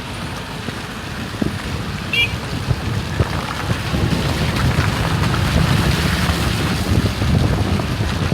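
Wind rumbling on the microphone over a steady hiss that grows a little louder partway through, with a short high chirp about two seconds in.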